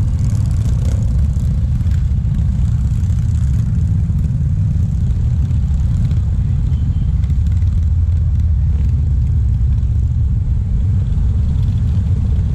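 Many motorcycle engines running at low speed in a slow-moving mass ride: a steady low rumble.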